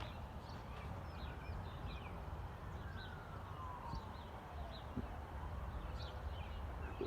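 Faint emergency-vehicle siren wailing, its pitch sliding slowly down and then back up. Small birds chirp over it.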